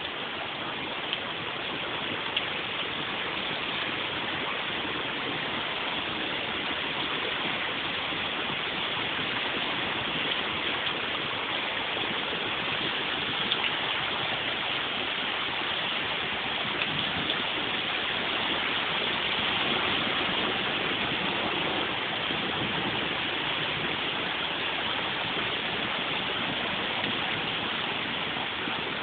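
Steady rain falling, a dense even hiss that swells a little in the middle, with a few faint ticks.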